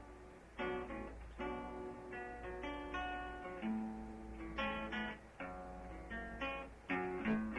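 Acoustic guitar intro to a song, strummed chords ringing out and changing every second or so, with no singing yet.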